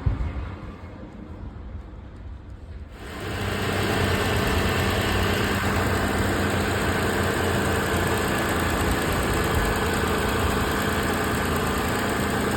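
Car engine running steadily. About three seconds in it becomes suddenly louder and fuller, then holds steady.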